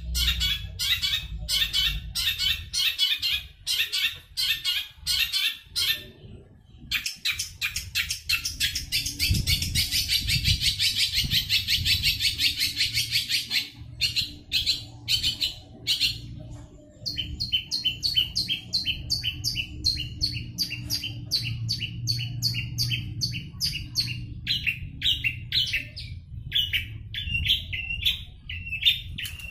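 Long-tailed shrike (cendet) singing a fast, varied 'sapu jagat' song of many borrowed calls: quick runs of high chirps and a dense trill in the middle, broken by a few short pauses.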